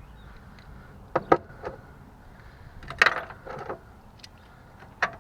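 Hand tools being picked up and handled: a few separate sharp clicks and metallic clatters, the loudest a pair about a second in and another about three seconds in.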